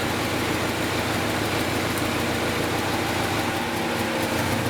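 2010 Chevy Equinox's 2.4-litre four-cylinder Ecotec engine idling rough, held steady. The number 3 ignition coil is unplugged and the idle does not change, the sign that cylinder 3 is already misfiring.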